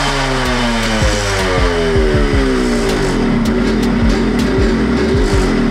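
Yamaha RX100 single-cylinder two-stroke engine running on its newly fitted Allied CDI, the revs falling away over the first three seconds and then holding at a steady lower speed, with irregular sharp pops throughout.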